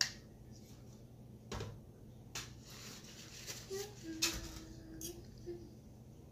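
Light clicks and taps of cutlery and a small plastic sauce cup against a plate, with a short rustle of a paper napkin about midway.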